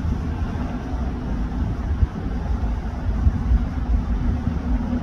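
Bell 206B JetRanger helicopter hovering overhead: the rapid low thudding of its two-blade main rotor over a steady hum from its turbine engine.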